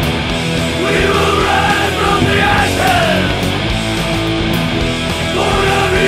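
A heavy metal and punk rock band playing loud and steady, with two electric guitars, bass and drums, on a rough studio demo mix.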